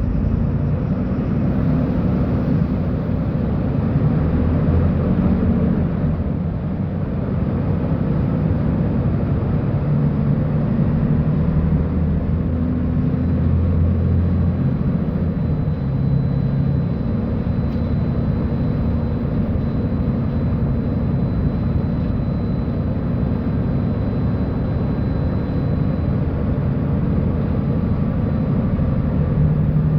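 Diesel engine of a Mercedes-Benz O-500U city bus running, its low drone rising and falling in pitch as engine speed changes. A faint high whine runs for several seconds in the middle.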